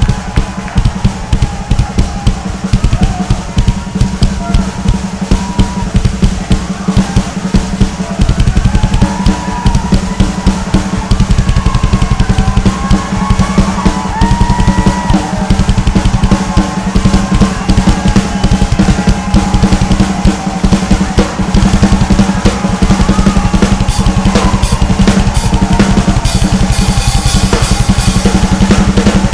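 Drum kit played in a fast solo: rapid strokes on snare and toms over a bass drum, getting heavier and denser about eight seconds in, with cymbal crashes ringing out brightly near the end.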